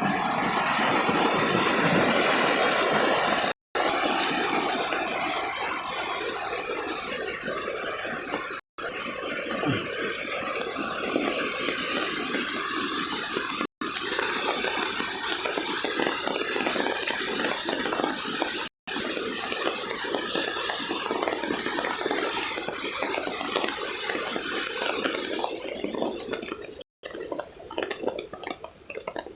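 Heavy rain pouring: a dense, steady hiss of water, broken by brief silent gaps about every five seconds, thinning to a more scattered patter near the end.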